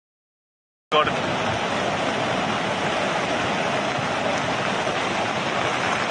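Silence for about the first second, then the steady rushing of a flood-swollen river in full spate.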